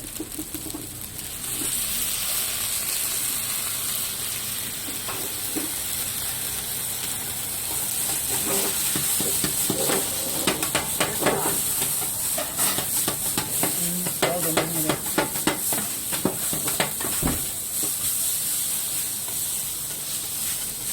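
Fried rice sizzling on a hot teppanyaki iron plate. The sizzle jumps up loudly about a second and a half in. Through the middle comes a quick run of metal spatula scrapes and clacks against the plate as the rice is stirred and tossed.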